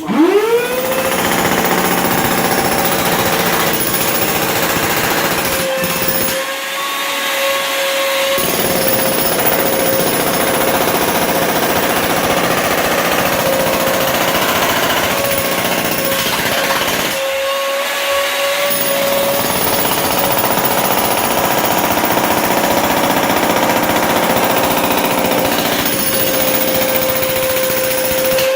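Electric demolition hammer breaking up a concrete floor. Its motor whines up to speed at the start, then holds steady under rapid pounding. The pounding drops out briefly twice while the motor keeps running.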